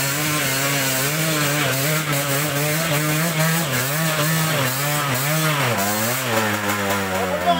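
Two-stroke enduro dirt bike engine being ridden slowly on a muddy trail, its revs rising and falling over and over with the throttle, then dropping to a lower pitch about six seconds in.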